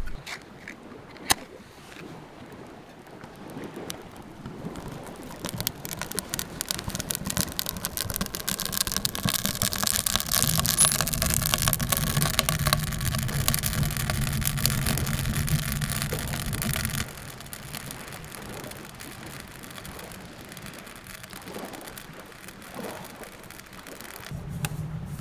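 Strong wind with rain spattering, a crackling rush that builds over several seconds over a low rumble and then cuts off suddenly about two-thirds of the way through.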